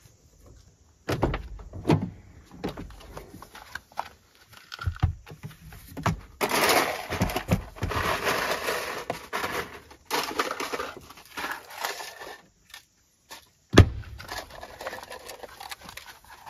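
Gear being rummaged and shifted around in a pickup truck. A couple of heavy thuds come about a second in, several seconds of rustling and clattering follow in the middle, and there is one sharp thump near the end.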